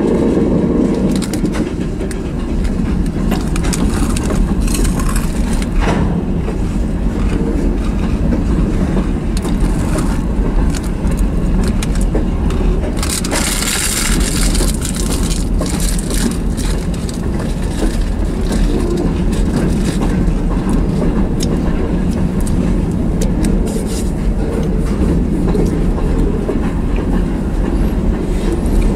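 Freight train cars, covered hoppers and tank cars, rolling past: a steady low rumble of steel wheels on rail with scattered clicking over the rail joints. A brief high hiss rises for a couple of seconds about halfway through.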